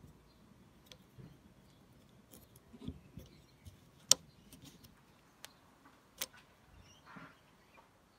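Handling noise from an old claw hammer turned in the hand: scattered small clicks and taps of fingers and thumbnail on its rusty metal baseplate, the sharpest about four seconds in, and a short scrape a little after seven seconds.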